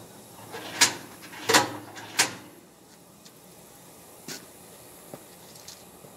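Three sharp metal clacks about two thirds of a second apart, as a control lever is fitted to the steel body of a Grand Comfort wood cook stove, followed by a few faint ticks.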